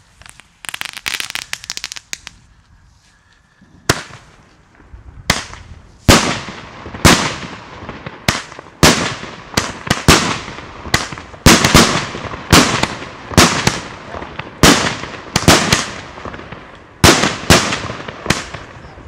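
A small consumer firework battery going off. About a second in there is a short spell of fast crackling, then a lull, and from about four seconds in a steady run of sharp shots, about two a second, each echoing away, as gold-tailed stars go up and burst.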